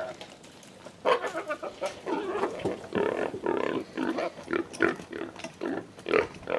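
Feral hog, just hit in the spine by an arrow, giving short rapid grunts and squeals, several a second.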